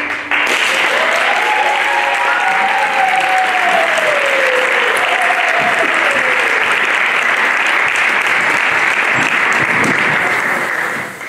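Live dance music ends on a last note, then an audience applauds steadily. One voice cheers in a long call that rises and then falls in pitch over the first few seconds, and the applause fades out at the very end.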